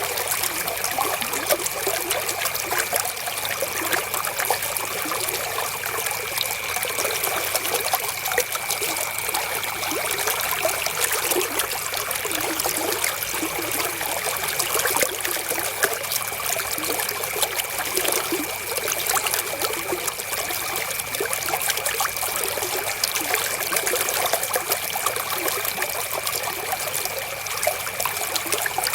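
Flowing river water, a steady trickling rush that does not let up. A faint steady high tone runs beneath it.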